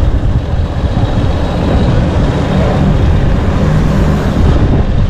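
Motorcycle engine running as the bike rolls along at low road speed, with wind rumbling on the helmet-mounted microphone.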